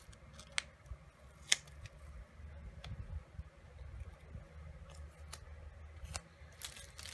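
Faint scattered clicks and light taps, about half a dozen spread irregularly, from small stationery items being handled, over a low rumble.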